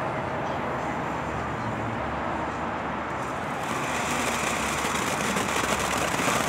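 Phantom Brew Haha fountain firework burning low with a steady rushing noise, then about three and a half seconds in flaring up again into a bright spray with a rising hiss and fine crackle.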